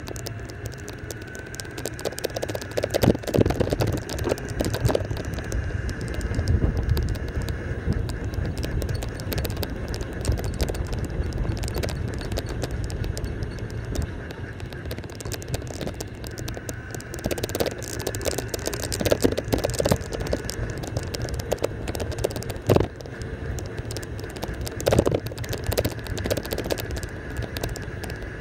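Golf cart driving along a path: a steady running rumble with a thin whine that drifts slightly in pitch. Scattered rattling knocks come as the cart goes over bumps, in clusters a few seconds in and again about two-thirds of the way through.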